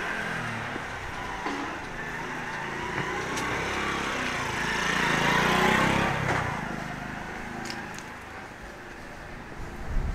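A motor vehicle drives past on the street, growing louder to a peak a little past halfway and then fading away.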